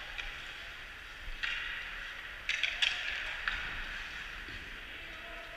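Ice hockey play on a rink: skate blades scraping the ice as a steady hiss, with a few sharp clacks of sticks and puck. The loudest clacks come as a quick cluster about two and a half to three seconds in.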